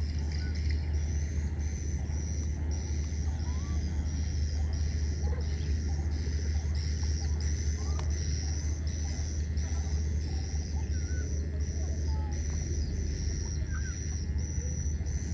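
Outdoor ambience: a steady low rumble under a high-pitched pulsing call that repeats about every half second, with a few faint short chirps.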